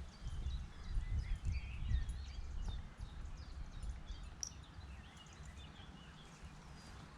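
Several small birds singing and chirping, with many short chirps and quick rising and falling notes, over a low rumble that is strongest in the first three seconds and then fades.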